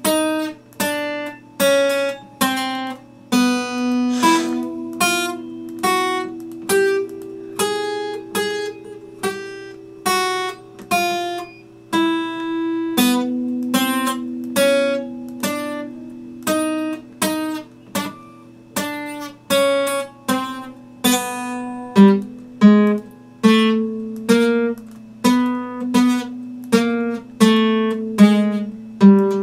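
Epiphone acoustic guitar played by hand: regular strummed chords with melody notes ringing on top, about three strokes every two seconds, each left to ring out. The playing gets louder about two-thirds of the way through.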